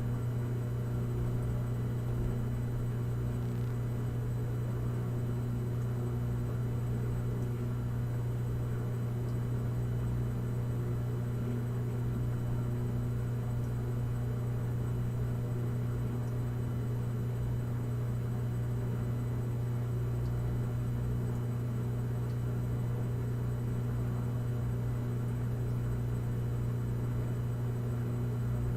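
Washing machine running steadily in its drain-and-spin cycle, an even, unbroken hum.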